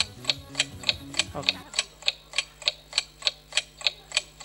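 Clock ticking sound effect for a countdown timer: sharp, even ticks about three a second. A faint low sound underneath cuts off about a second and a half in.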